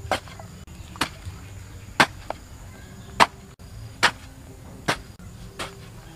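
A hoe chopping into dry, clumpy soil, about seven strokes roughly a second apart.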